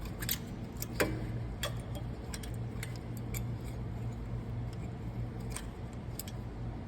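Scattered light metallic clicks and taps as a brake pad anti-rattle clip is pressed into a caliper bracket, the sharpest about a second in, over a steady low hum.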